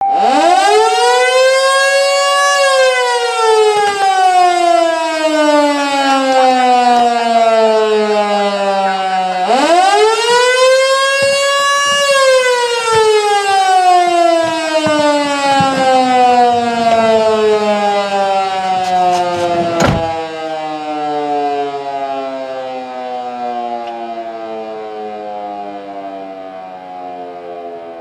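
Federal Signal Canadian Model 2 electro-mechanical siren winding up to full pitch in about two seconds, then coasting down in a long falling wail; it winds up a second time and again slowly falls in pitch and fades. A single sharp knock about two-thirds of the way through.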